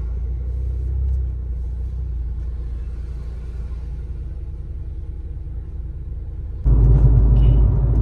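Low, steady road rumble of a car's engine and tyres heard from inside the moving car's cabin. Near the end it jumps abruptly louder.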